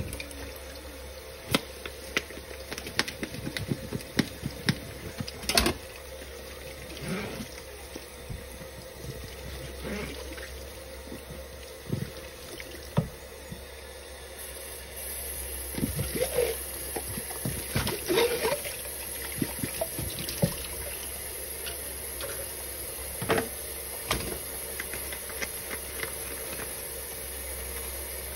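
Kitchen faucet water running into a stainless-steel sink while dishes are rinsed by hand, with frequent sharp clinks and knocks of plastic and ceramic dishware against each other and the sink. The water gets a little louder about halfway through.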